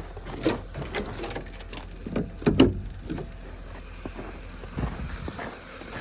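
Irregular knocks and thumps over a low steady hum, the loudest about two and a half seconds in.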